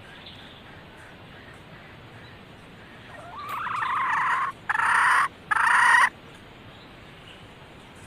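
Red junglefowl hen calling, the call a hen gives to draw in males: three loud calls about three seconds in, the first longer and rising in pitch, then two shorter ones in quick succession.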